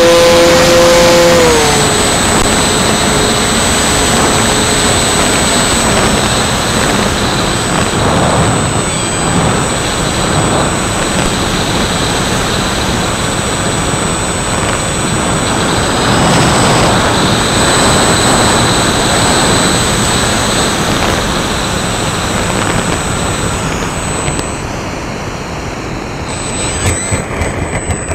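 Twin Dream RC model plane's twin electric motors, heard from an onboard camera: their whine drops in pitch about a second and a half in as the throttle comes back, after which mostly air rushing past the airframe is heard, with a faint steady high whine. The rush fades near the end, with a few knocks as the plane skims the grass.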